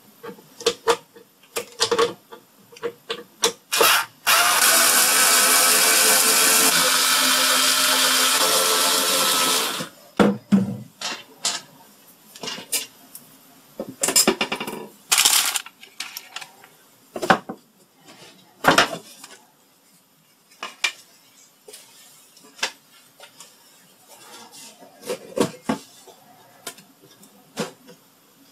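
Electric drill-driver running steadily for about five seconds as screws are backed out of the radio's wooden cabinet. Before and after it come scattered clicks and knocks from handling the screws and case.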